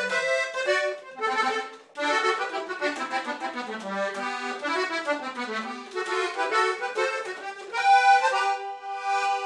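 Accordion playing an instrumental interlude of a corrido: quick runs of notes, settling into a held chord near the end.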